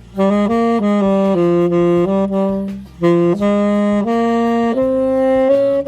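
Tenor saxophone playing a melody line of moving notes, with a short break about three seconds in and a long held note near the end.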